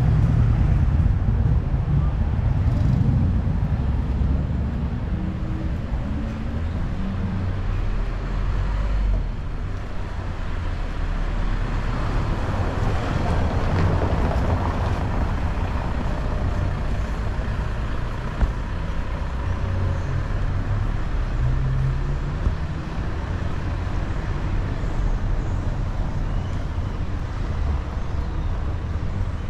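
City street ambience dominated by road traffic: a steady low rumble of vehicles that swells as a vehicle passes about halfway through, with two short knocks in the second half.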